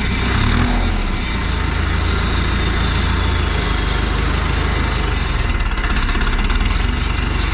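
Ursus 1014 tractor's turbocharged four-cylinder diesel engine (Martin Z 8002.12) running steadily as the tractor drives along, heard close to its exhaust stack.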